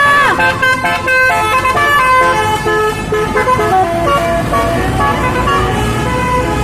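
Telolet basuri multi-tone bus horn playing a quick melody of short stepped notes, just after a held horn chord bends down in pitch and cuts off.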